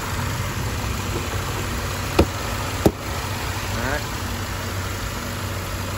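Mercedes-Benz engine idling steadily, with two sharp clicks a little over half a second apart, about two seconds in.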